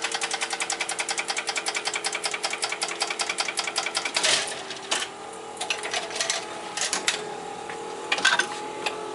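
1955 Wurlitzer 1800 jukebox's selection mechanism running through the records after a keyboard selection: rapid even clicking, about ten a second, over a steady hum. About four seconds in it stops with a clatter, followed by a few scattered clunks and clicks as the mechanism moves the chosen record to play.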